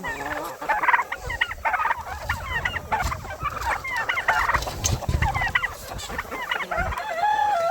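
A flock of chickens calling and clucking around feed: many short, overlapping calls one after another, over a low rumble.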